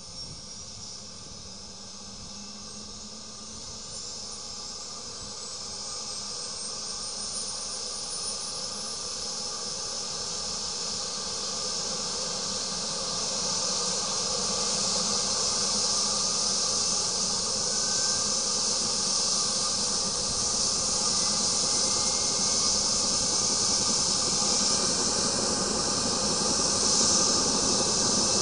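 MBB-Kawasaki BK 117 helicopter's twin turboshaft engines spooling up during start, the main rotor gathering speed. A high turbine whine rises slowly in pitch over a strong hiss, and it grows steadily louder.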